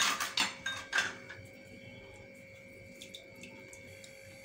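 A metal utensil clatters and scrapes against the pressure cooker pot several times in about the first second, stirring in the curry. After that only a faint steady hum remains.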